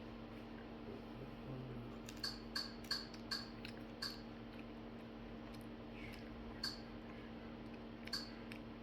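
Faint chewing of crisp celery: a scatter of short, irregular crunchy clicks starting about two seconds in, over a steady low hum.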